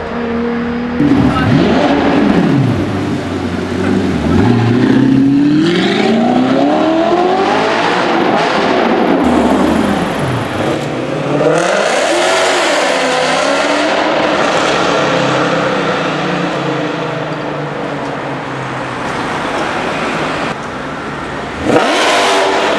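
Supercar engines accelerating hard, their pitch climbing and dropping back with each gear change, in several short clips joined by abrupt cuts.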